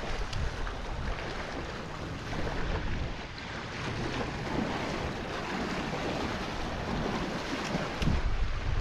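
Wind buffeting the microphone over small lake waves washing and splashing against shoreline rocks.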